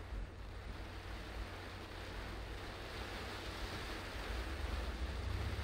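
Steady hiss of rain and a low engine rumble heard from inside a car waiting at traffic lights, swelling near the end as the car begins to pull away.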